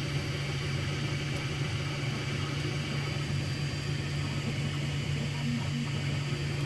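Anet A8 3D printer running mid-print: a steady hum from its fans and stepper motors, with a couple of short higher stepper notes near the end.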